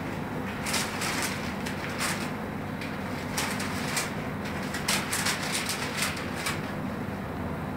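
Newspaper rustling and crackling as a large sheet is handled, opened and folded, in irregular short crackles, over a steady low hum.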